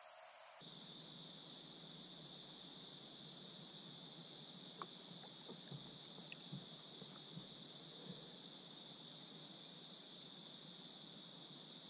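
Faint, steady high-pitched insect chorus with a brief pulse about once a second, and a few soft ticks scattered through it.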